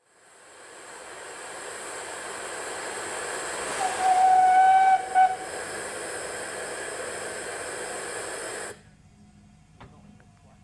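Narrow-gauge steam locomotive Palmerston hissing loudly as it lets off steam, the hiss building up and then stopping abruptly. About four seconds in, its whistle gives one short blast and a brief second toot.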